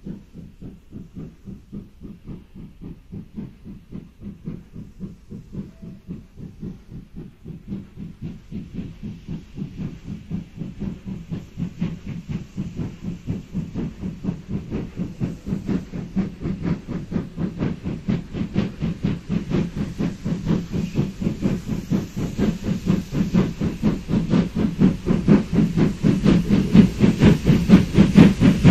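Steam locomotive 52.100, a German Class 52 two-cylinder 2-10-0, working hard as it pushes a rotary snow plough: a fast, even chuffing of exhaust beats with steam hiss from the cylinders. It grows steadily louder as the engine approaches.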